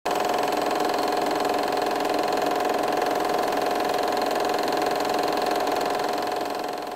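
Film projector running, a steady mechanical whir that fades out near the end.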